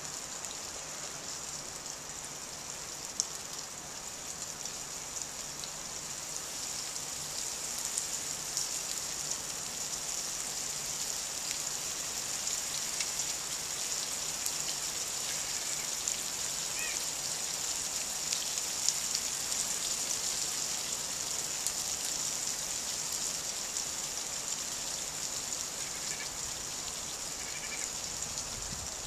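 Garden sprinkler spraying water, a steady high hiss with fine pattering of spray landing on ice-coated branches and snow.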